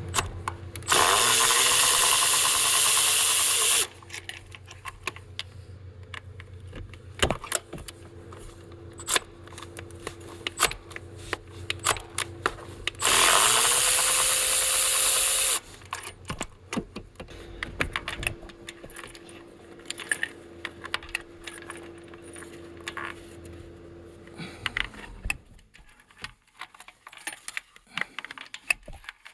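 Cordless power ratchet spinning spark plugs out of a 5.7 L Hemi V8 through a socket and swivel extension: two whirring runs of about three seconds each, rising in pitch as the motor spins up and then holding steady. Tools and plugs clink and click in between.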